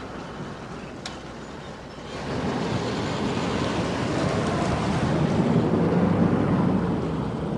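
A police patrol car driving past close by: engine and tyre noise swells up about two seconds in, is loudest a second or so before the end, then eases off slightly.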